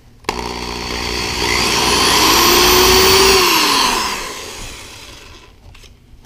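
Cordless drill with a 7/32-inch bit starting suddenly and drilling into a wooden block, its motor whine rising in pitch for about three seconds, then winding down and fading.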